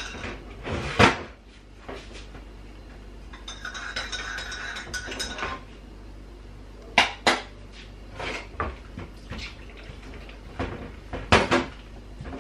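Wooden spoon knocking and scraping against a ceramic mixing bowl as flour batter is mixed. There are a handful of sharp clinks and knocks, with a softer stretch of scraping in between.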